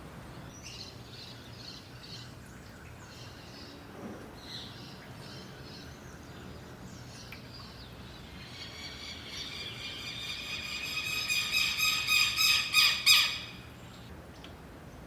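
Birds calling: scattered short high chirps, then one bird's call, a rapid series of repeated notes that speeds up and grows louder for about five seconds and breaks off suddenly.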